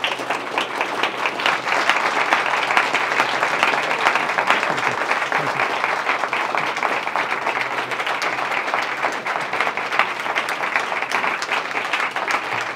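Audience applauding: dense clapping that builds over the first couple of seconds and then holds steady.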